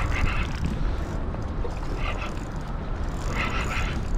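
Wind buffeting an action-camera microphone on a kayak in a steady low rumble, with a couple of brief brighter rustles about two and three and a half seconds in.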